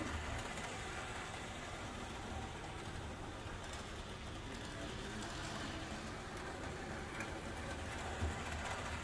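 Toy model steam locomotive running around a circle of track: a steady motor hum and wheel rattle on the rails that grows louder as the engine passes closest, near the start and again near the end.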